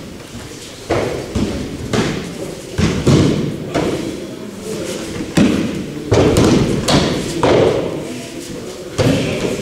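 Aikido breakfalls: bodies and hands hitting tatami mats in about a dozen irregular thuds from several pairs practising at once, each one echoing in a large hall.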